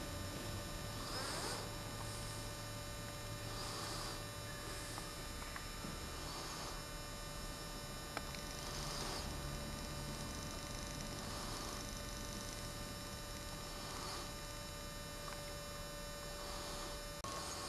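Steady electrical hum with a held mid-pitched tone and fainter higher tones, and a soft hiss that swells about every two and a half seconds. The main tone cuts off just before the end.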